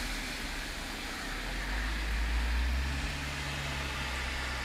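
Steady rain falling on a wet parking lot and road. About halfway through, a low rumble and hum from a car driving by on the wet road.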